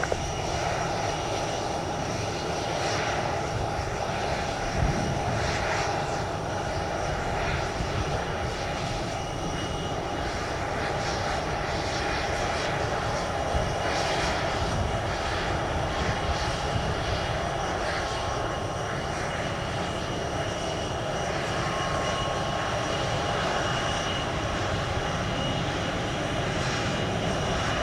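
Jet airliner engines running, a steady rush of noise with a high, steady whine over it.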